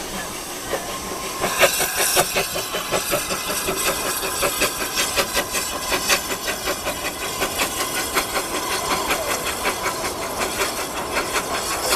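Narrow-gauge steam locomotive Excelsior and its passenger carriages passing close, with a steady hiss of steam. From about a second and a half in there is a quick, even run of knocks, about four or five a second, as the train draws alongside.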